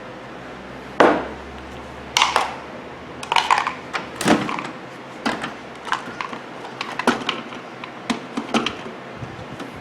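Handling noise: a run of irregular sharp knocks and clicks, the loudest about a second in, as objects are picked up and set down.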